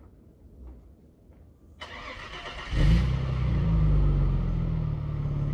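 Audi allroad 2.7 twin-turbo V6, remapped and with its catalytic converters removed, being started at the tailpipes: the starter cranks briefly, the engine catches about two and a half seconds in with a loud flare, then settles into a fast, steady idle.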